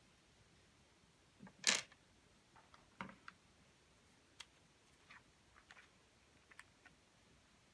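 Clear slime being worked by hand, giving scattered small sticky clicks and pops, with one louder crackle about a second and a half in.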